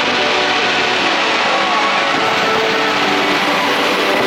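Fireworks show music playing loud and steady over a dense wash of noise, with no distinct bang standing out.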